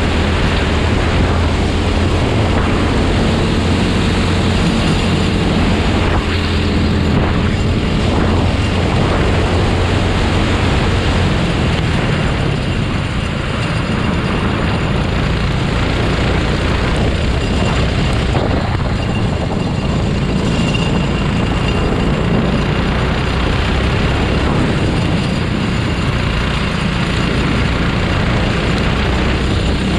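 Go-kart engine running hard in a race, heard from on board, its note shifting in pitch with the throttle, over a steady rush of wind and road noise.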